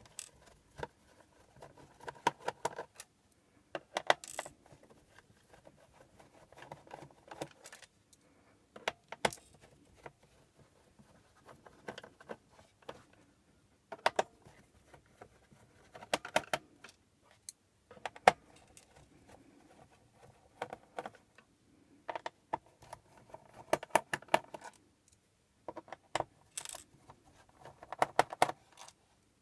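Small screws being unscrewed by hand with a screwdriver from the plastic bottom cover of a rugged laptop: clusters of light clicks and scrapes as the driver turns, with sharp metallic clinks as loose screws are set down on a pile of screws.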